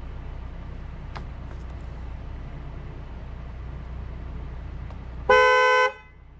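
Vehicle engine idling with a steady low hum, then one loud horn honk of about half a second near the end.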